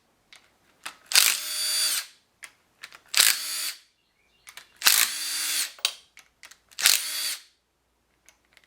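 Power drill run in four short bursts, each about half a second to a second, starting with a click and winding down at the end, backing out bolts on an LS V8's valve cover.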